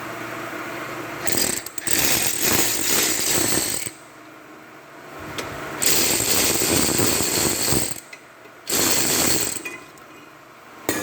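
Pneumatic impact wrench running in three loud rattling bursts, the second and third close together, working wheel or brake bolts.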